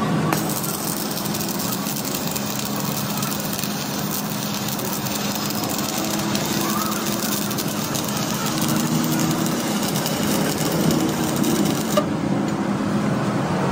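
A power tool running steadily with a fast, continuous rattling hammering.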